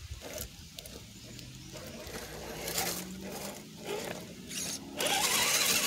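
Faint scraping and rustling from an RC rock crawler after it has tumbled down rocks, with a faint steady motor whine from about two seconds in. A burst of wind noise on the microphone comes near the end.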